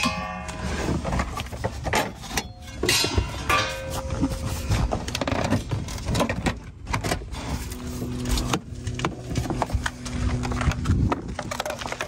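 Knocking and rattling of a convertible soft top's stiffener bar and rain rail being handled and pulled free, with a low steady hum for a few seconds near the end.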